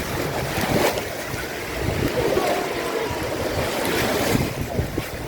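Sea waves washing, with wind buffeting the microphone in an uneven low rumble.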